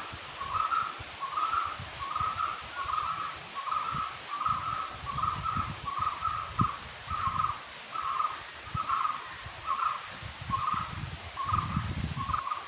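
A bird calling over and over in a steady series, about two short calls a second, with intermittent low rumbling underneath.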